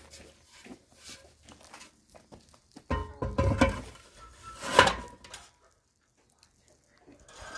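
Metal knocking and scraping as a long metal chimney pipe is set upright onto a homemade Stirling engine, with a burst of clatter about three seconds in and a sharp, ringing metal clank just before five seconds.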